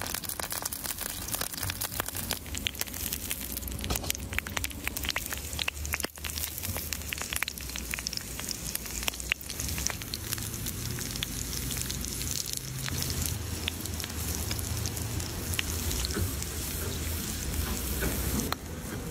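Hot oil sizzling and spitting on a stone griddle as a skewer of garlic cloves fries in it, with frequent sharp crackles and pops.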